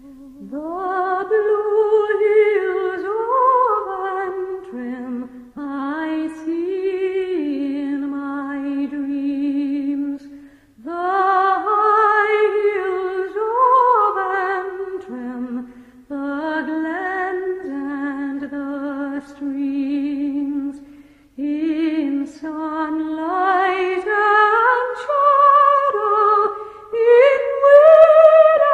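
A lone voice singing a slow, wordless melody with vibrato and no accompaniment, in phrases of four to five seconds with short pauses between them.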